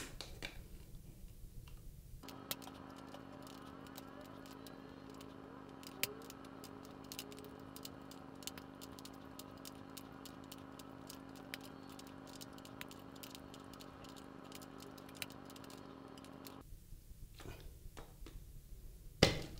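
Diagonal cutters prying and cutting the crimped rim of an aluminium capacitor can: faint, irregular small clicks and metal snips. A steady hum runs beneath them from about two seconds in, stopping abruptly near the end.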